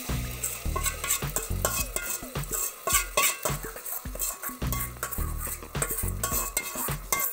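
Steel spoon scraping and clinking against a steel bowl as tomato puree is scraped out into a cooking pot, with repeated sharp clinks and scrapes.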